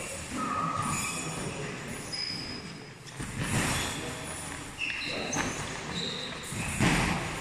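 Boxing sparring: gloved punches landing as three dull hits, about halfway, about five seconds in and near the end, among short squeaks of shoes on the ring canvas.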